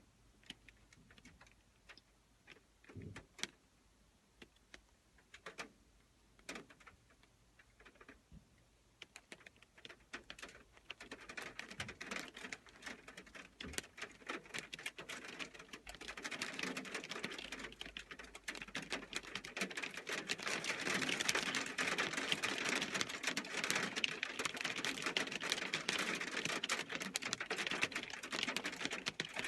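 Hail and heavy rain striking a metal roof. It starts as scattered sharp ticks, thickens from about ten seconds in, and becomes a dense, loud patter by about sixteen seconds in.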